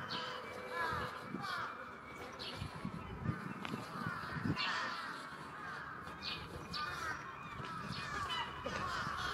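Crows cawing over and over, several calls overlapping, each a short falling note.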